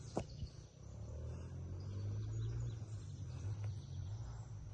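Quiet outdoor river ambience: a steady low rumble with faint bird and insect sounds, and a single click about a quarter second in.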